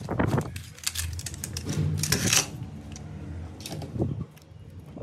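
Plastic audio cassette cases clicking and rattling in the hands as they are handled and pried at with a small tool. The clicks are irregular, with a louder cluster about two seconds in.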